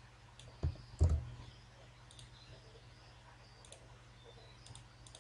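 Clicks from a computer mouse and keyboard, mostly faint and scattered, with two louder low knocks about a second in, over a steady low hum.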